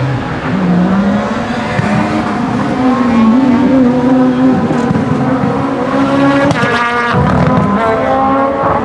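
Renault Clio Super1600 rally car's 1.6-litre four-cylinder engine revving hard up and down through a tight chicane, the pitch climbing steeply and dropping about seven seconds in at a gear change. The tyres squeal briefly as it turns.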